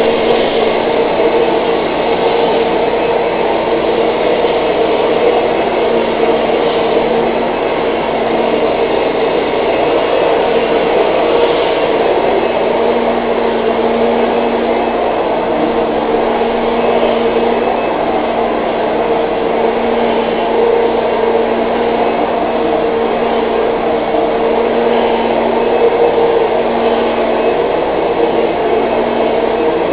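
Vacuum cleaner running steadily: a constant motor noise with a steady hum in it that swells a little now and then.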